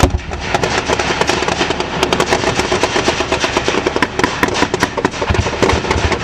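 Sustained gunfire in a firefight: many rapid, overlapping shots and bursts, with a loud report right at the start and low thumps about five seconds in.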